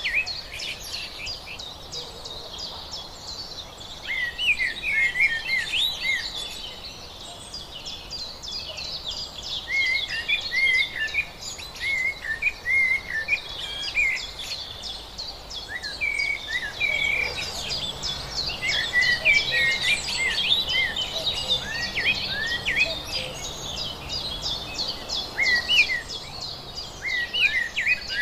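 Many small birds chirping and singing at once, a dense chorus of short, quick chirps and sweeping notes, over a faint steady background hiss.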